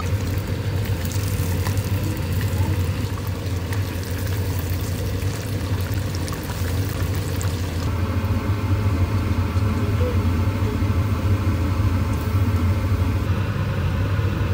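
Breaded chicken strips deep-frying in a saucepan of hot oil: a steady crackling sizzle over a constant low hum.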